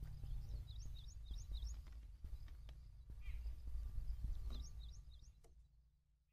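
Low wind rumble on the microphone with a small bird chirping in quick runs of short notes, four about a second in and three more later, plus a few faint clicks. The sound fades away just before the end.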